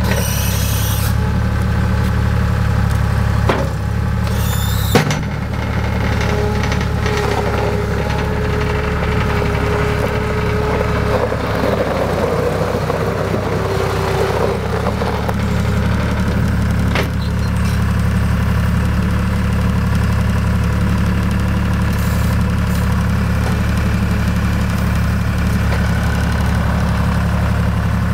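John Deere 240 skid steer loader's diesel engine running steadily at idle. A few sharp knocks are heard, and a thin whine runs for several seconds in the middle.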